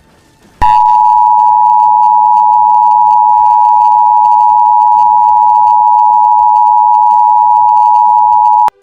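Emergency Alert System two-tone attention signal: two steady tones sounding together as one harsh alarm tone. It starts about half a second in, holds unchanged for about eight seconds, then cuts off abruptly.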